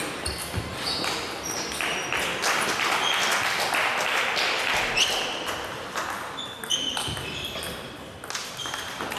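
Table tennis rallies: celluloid balls clicking off bats and tables in quick irregular succession, from several tables at once, with short high squeaks scattered among the clicks.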